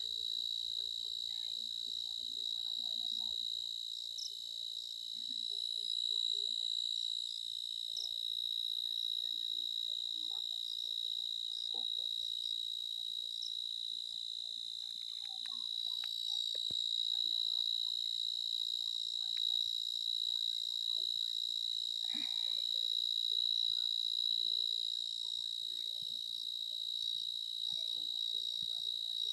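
Steady, high-pitched insect chorus trilling without a break, with faint scattered clicks and rustles underneath.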